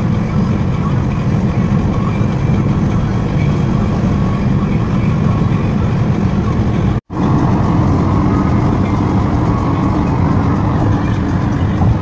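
Steady low rumble of a car driving, which cuts out for an instant about seven seconds in.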